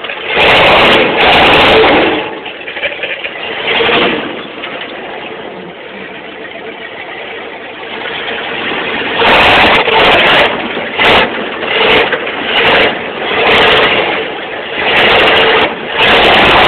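1978 Ford F-150's engine revving hard in repeated surges as the truck is driven off-road, settling to a lower steady run for several seconds in the middle.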